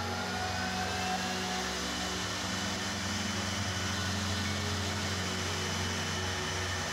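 A router motor on a wood-joinery machine runs steadily while its spiral bit cuts box-joint slots into the end of a wooden block.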